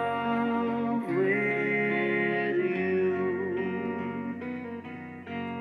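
Music: a man sings a slow ballad over plucked guitar, holding a long note, and the guitar plays on alone, note by note, in the last couple of seconds.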